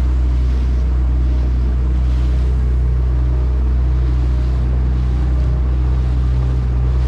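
Small boat's engine running steadily as the boat motors along, a constant low hum with the rush of water and wind over it.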